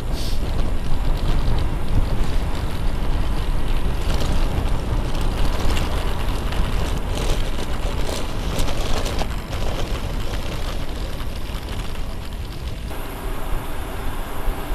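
Wind rushing over the microphone and the tyre noise of a road bike rolling downhill. In the middle it turns into a rough rattle of many small knocks as the tyres run over paving stones, and it smooths out again near the end on asphalt.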